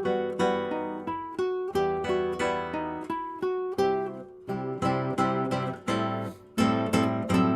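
Background music: acoustic guitar picking a melody note by note, with fuller strummed chords near the end.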